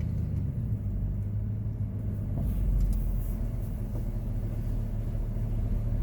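Vehicle engine running at low speed while reversing into a parking spot, a steady low rumble heard from inside the cab.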